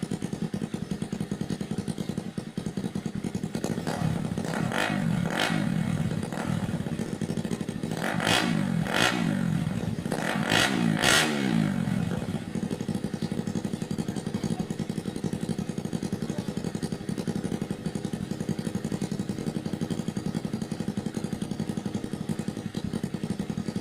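Motorcycle engine running through a homemade 'chicken pipe' exhaust. It idles steadily, has its throttle blipped in a series of quick revs from about four seconds in, and settles back to idle about twelve seconds in.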